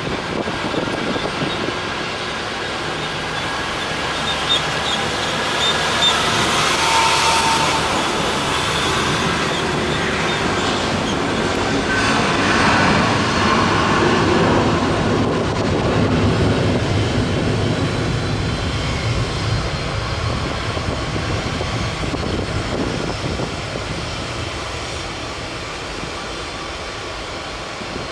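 Boeing 737 jet engines running at taxi power: a steady rumble and whine that swells twice as the airliner rolls past.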